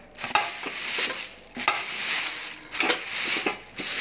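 Clear plastic bag crinkling and rustling as it is pulled off an aluminium milk can, in uneven swells with small sharp crackles.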